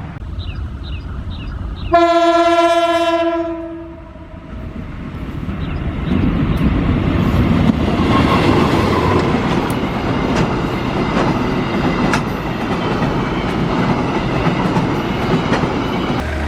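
A CC201 diesel-electric locomotive's S35 horn sounds one long single-note blast about two seconds in. The train then comes past with a growing rumble and the repeated clicking of wheels over rail joints.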